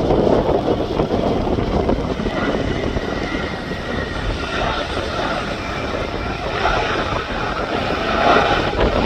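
Jet airliner engines running: a loud, steady rush with a faint high whine through the middle.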